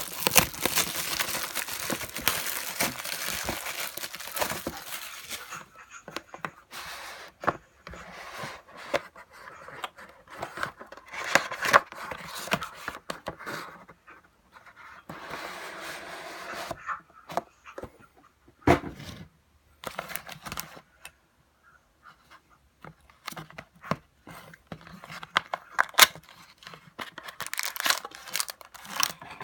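Plastic wrapping being torn and crinkled as a sealed trading-card hobby box is opened by hand: a long stretch of tearing for the first six seconds, then shorter crinkling bursts with sharp clicks and taps of cardboard, and more crinkling near the end.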